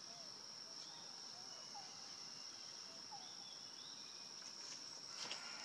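Insects singing outdoors: a steady, unbroken high-pitched drone, with a few soft short chirps and some light rustling clicks about five seconds in.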